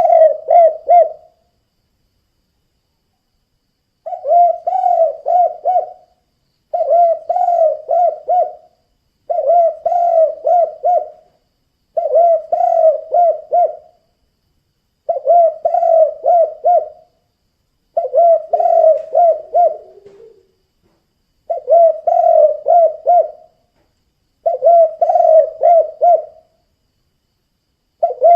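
Spotted dove (tekukur) singing its 'kuk 2' cooing song: a phrase of four or five low, pulsed coos, repeated about every three seconds.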